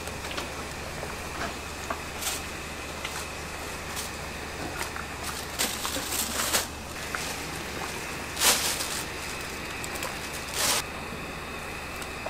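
Sheets of pork rind being handled and laid into a stockpot of broth: short rustles of the plastic bag lining the bowl and of wet skin, the loudest about eight and a half and ten and a half seconds in, over a steady low hum.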